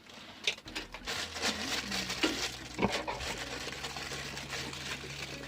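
Packaging rustling and clicking as the parts of a microphone kit are unpacked by hand, with several short sharp clicks. Low steady background music comes in about a second in.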